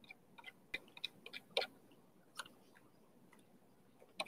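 Faint, irregular small clicks and ticks, a quick cluster in the first second and a half, then one or two more later.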